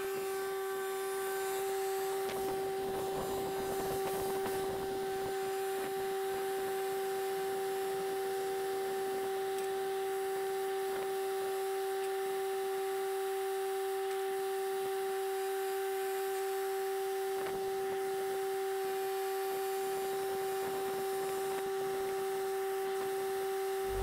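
A steady, unchanging hum at one even pitch, with faint scattered rustles and a few light knocks beneath it.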